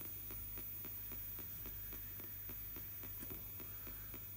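Spirit box radio scanner sweeping the AM band in reverse: a steady hiss of static broken by rapid, evenly spaced clicks several times a second as it jumps from station to station, over a low steady hum.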